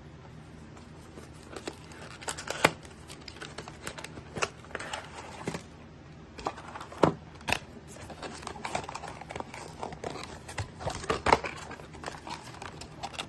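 Packaging being handled and unpacked: plastic and cardboard rustling and crinkling, broken by scattered sharp clicks and taps, the loudest a few seconds apart.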